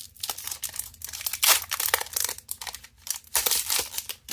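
Foil wrapper of a Magic: The Gathering play booster pack crinkling as it is torn open, in quick irregular crackles that stop near the end.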